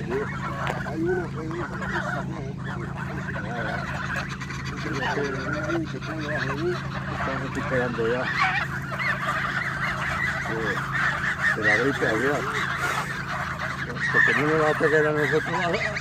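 A flock of domestic geese honking and calling over one another while crowding to be fed. The calls grow into a dense chorus about halfway through and are loudest near the end.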